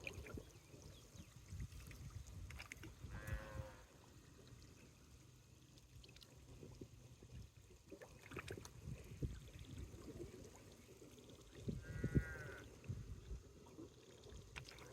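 Faint bleating from a goat or sheep, two short wavering calls about nine seconds apart, over a low rumble.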